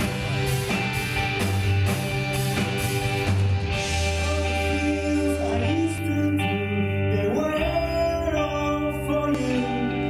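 A live rock band playing: electric guitars, bass and drums. The drums' cymbal strikes drop away about a third of the way in and come back near the end.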